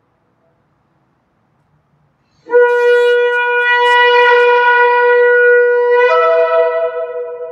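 About two and a half seconds in, a shofar sounds one long blast. It scoops up into a steady note, jumps to a higher note about three and a half seconds later, and begins to fade near the end.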